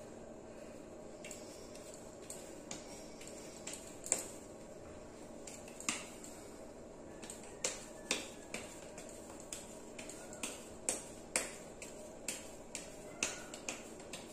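Soft sooji dough being patted and pressed between oiled palms while a litti is shaped: a string of sharp little smacks at an uneven pace, some louder than others, over a faint steady background hum.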